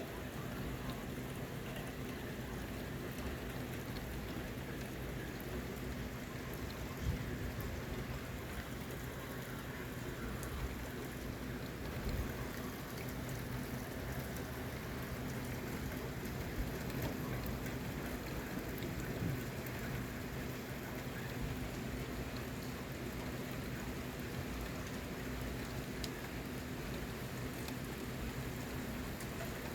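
Steady rain falling, with a few louder drop hits standing out now and then.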